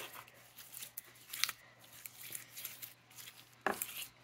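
Slime being stretched and pressed by hand, giving scattered soft clicks and crackles. It is being worked after a spray of activator to make it less sticky.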